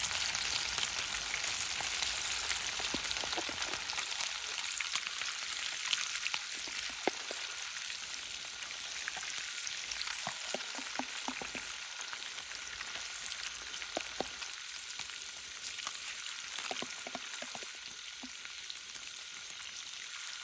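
Fish frying in hot oil: a steady sizzle with scattered sharp pops and crackles, slowly easing off over the stretch.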